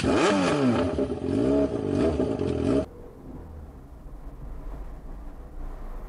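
A motorcycle engine revving up and down several times, cutting off abruptly about three seconds in, followed by the quieter low, steady rumble of a car driving.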